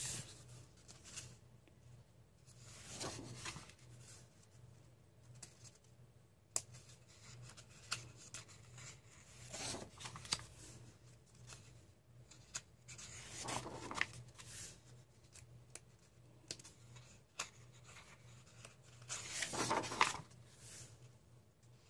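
Thin printer-paper pages of a paperback coloring book being turned by hand. Soft swishes and rustles come every few seconds, with the hands brushing the pages flat between turns.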